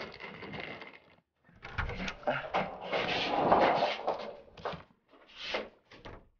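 A door and a wheeled suitcase being handled as people walk in: clicks, knocks and rustling in several separate spells, busiest in the middle.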